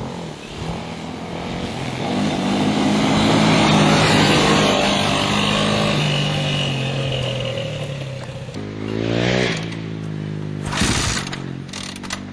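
ATV engine running under throttle over rough ground, swelling louder a few seconds in, then climbing in pitch as it revs about nine seconds in.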